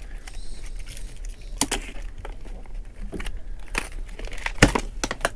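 Fishing tackle rattled and knocked about in a plastic tackle box: scattered sharp clicks and knocks, about four of them, over a low steady rumble.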